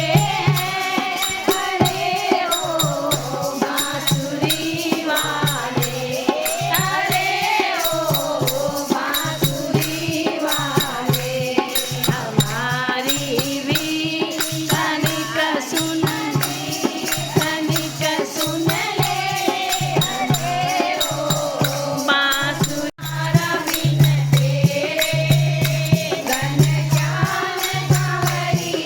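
Devotional bhajan sung by a group in kirtan style, with jingling hand percussion keeping a steady beat. The sound cuts out for an instant about two-thirds of the way through.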